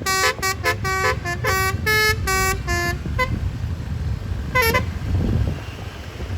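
Basuri 'telolet' multi-tone bus horn playing a fast tune of short notes at changing pitches for about three seconds. One short bending note follows a little over a second later. The low rumble of the bus runs underneath.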